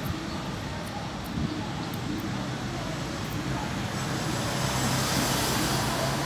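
Steady background noise of road traffic, swelling slightly about four seconds in.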